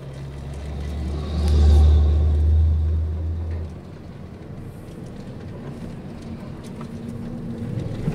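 A loud deep vehicle rumble swells and peaks about two seconds in, then drops away sharply after nearly four seconds. Steady, lower vehicle noise carries on after it.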